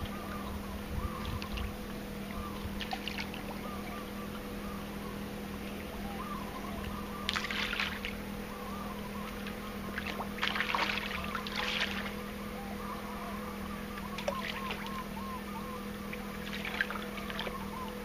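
Water splashing at the surface in short bursts as sharks and fish strike at food, the strongest bursts about seven seconds and ten to twelve seconds in, over a steady mechanical hum.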